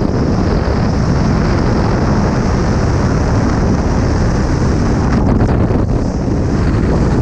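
Freefall wind rushing over a skydiver's body-worn camera microphone: loud, steady buffeting air noise.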